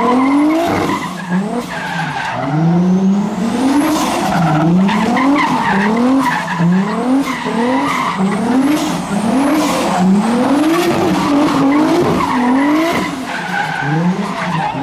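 Turbocharged 1JZ straight-six of a Toyota Chaser JZX100 revving hard, the revs climbing and dropping again roughly once a second, while the rear tyres screech and skid through a drift.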